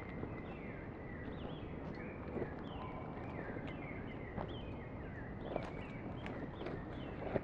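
Birds chirping over and over in short gliding calls, with footsteps tapping on a stone-paved path and a steady background hiss.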